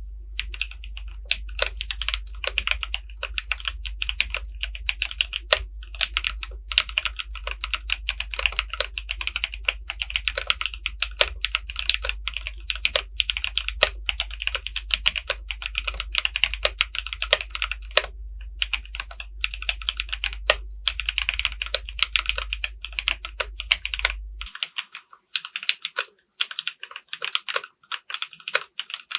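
Continuous fast typing on a DR-70F mechanical keyboard fitted with HMX Sonja linear switches: dense, quick keystroke clacks with a couple of short pauses.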